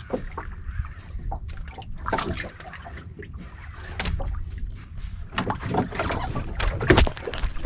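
Wind buffeting the microphone on a small outrigger boat at sea, a steady low rumble, with scattered knocks and clicks from the boat and fishing gear; the loudest knocks come about seven seconds in.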